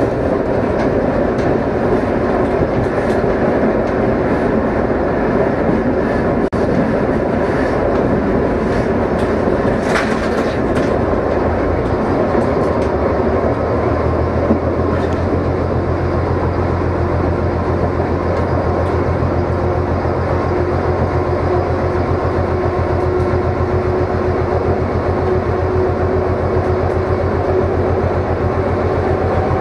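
Inside the cab of a ČKD class 742 diesel-electric locomotive under way: the six-cylinder diesel engine running while the wheels click over rail joints and points. About halfway through, the engine settles into a stronger, steady deep drone.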